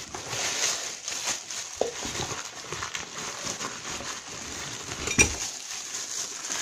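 Plastic bag crinkling and rustling against a cardboard box as a ceiling fan's motor housing is lifted out of its packaging, with small knocks throughout and one sharp clink about five seconds in.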